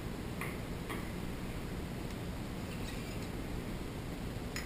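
A few light metallic clicks and taps of Armsan A612 semi-automatic shotgun parts being handled, the sharpest near the end, over a steady hiss.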